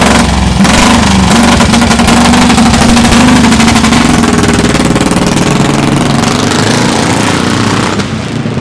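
Packman & Poppe motorcycle's JAP 350 single-cylinder four-stroke engine running with a rapid, rough pulsing beat at a fairly steady speed, getting quieter near the end.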